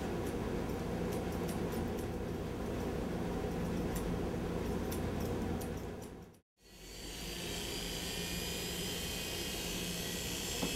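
Electric hair clippers running steadily as they cut short hair, with faint clicks. The sound drops out completely for a moment about six seconds in, then the steady buzz resumes.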